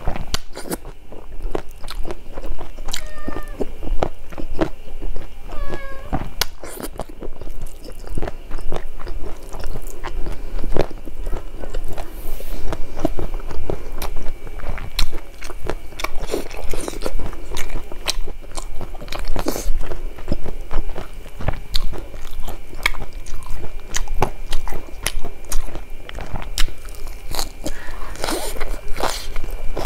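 A person chewing mouthfuls of rice and fish curry eaten by hand, with wet smacking and a dense, irregular run of small mouth clicks.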